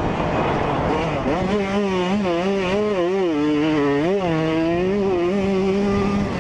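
2003 Yamaha YZ125 two-stroke dirt-bike engine under way, heard from on board. Its pitch climbs about a second in, wavers up and down with the throttle through the middle, then holds high and drops off near the end, over steady wind rush on the camera.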